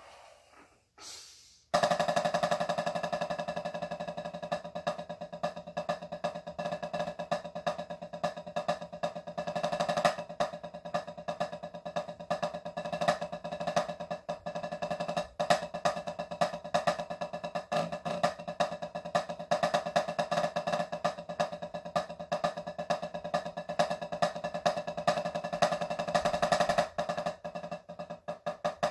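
Wooden drumsticks playing a rudimental snare drum solo on a practice pad. It begins about two seconds in: a dense, continuous stream of rapid strokes with frequent louder accents.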